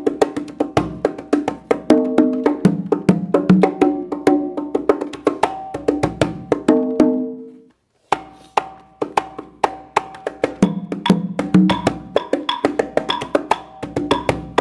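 Fisher-Price toy conga drums playing a built-in percussion rhythm: quick hand-drum and wood-block hits with a short repeating melody. It fades out about seven and a half seconds in and, after a brief silence, starts up again.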